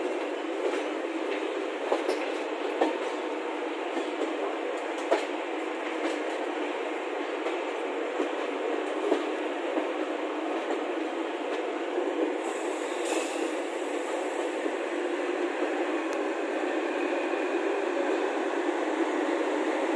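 Passenger train rolling along the track: a steady rumble with scattered sharp clicks of wheels passing over rail joints, growing slightly louder near the end.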